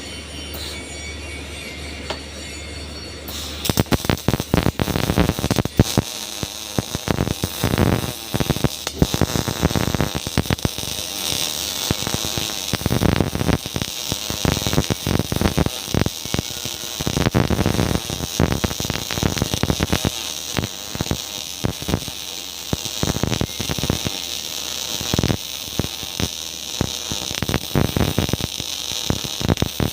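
A steady low hum, then about three and a half seconds in the MIG welding arc strikes and crackles continuously with irregular sharp pops and sputters.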